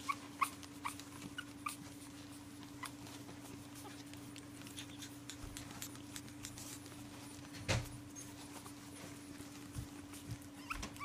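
Pug puppies giving short, high whimpers and squeaks in the first few seconds, then mostly quiet, with a single thump about two-thirds of the way in. A steady low hum runs underneath.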